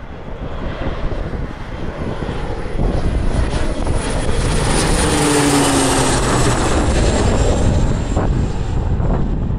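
Beech 200 Super King Air's twin PT6A turboprops passing low overhead on approach to land. The engine noise builds over the first few seconds and then holds loud. A high turbine whine falls slowly in pitch as the aircraft goes by.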